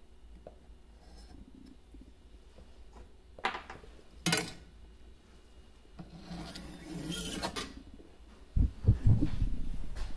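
A thin stainless steel shim and other metal parts being handled on an aluminum rail channel. There is a short scrape, a sharp click about four seconds in, a couple of seconds of metal rubbing on metal, and low thuds near the end.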